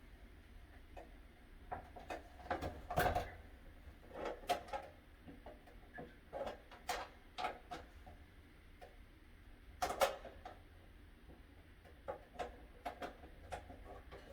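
Scattered clicks, taps and small knocks from handling a metal vanity light fixture against its wall bracket while its mounting nuts are threaded on by hand, with two louder knocks, about three seconds in and again about ten seconds in.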